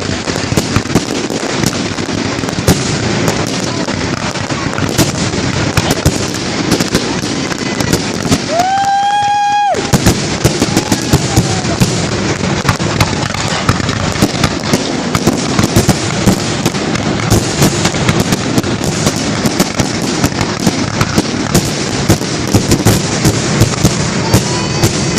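Fireworks display going off in a dense, continuous barrage of cracks and pops. A high whistle is held for about a second near the middle, and faint rising whistles come near the end.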